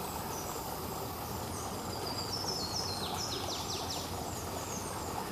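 Birds calling over a steady background rush: repeated short, high, falling chirps, and a quick run of falling notes about three seconds in.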